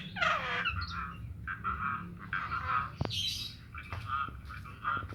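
Javan myna (jalak kebo) giving a run of harsh, varied chattering calls, one note after another with short gaps, over a steady low hum. A sharp click comes about three seconds in.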